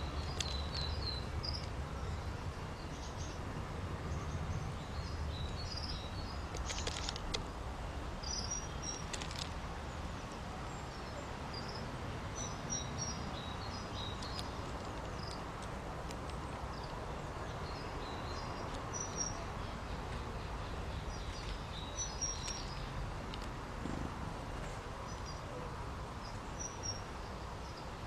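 Small garden birds chirping: many short, high chirps and twitters scattered throughout, over a steady low background rumble.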